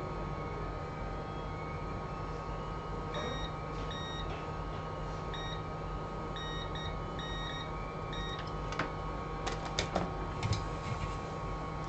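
A series of short electronic beeps at one pitch, irregularly spaced, over the steady hum of electronics bench equipment, followed near the end by a few sharp clicks.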